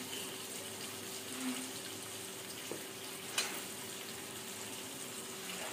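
Oil sizzling steadily in a karahi as kalonji seeds, tomato, green chillies and ground turmeric fry in it. A single light click comes a little over three seconds in.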